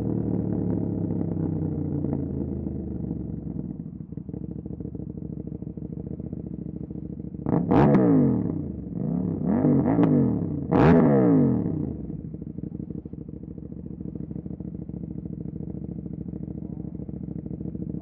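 2018 KTM 790 Duke's parallel-twin engine breathing through an Austin Racing RS22 exhaust: revs falling away to idle, then about halfway through three quick throttle blips, each revving up and dropping straight back, before it settles to a steady idle.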